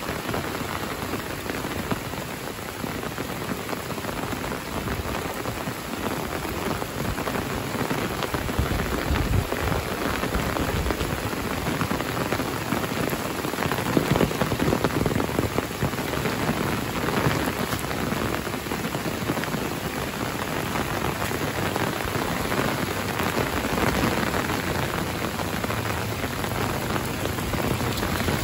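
Steady rain falling on trees, rooftops and a wet gravel lane, an even hiss that grows a little heavier for a few seconds about halfway through.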